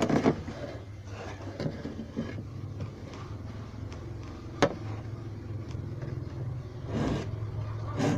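A metal file working the teeth of a hand saw in a few scattered rasping strokes and clicks, over a steady low hum.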